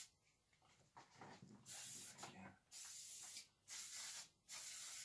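Aerosol can of silicone high-gloss coating spraying in four short hissing bursts, each under a second, beginning a little under two seconds in, with light handling rustle before the first.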